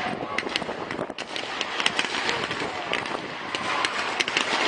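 Fireworks going off in scattered sharp cracks and pops, over a steady background of people's voices.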